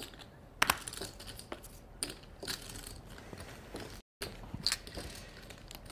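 Irregular light clicks and clatter of poker chips being handled and shuffled, with the sound cutting out for a moment about four seconds in.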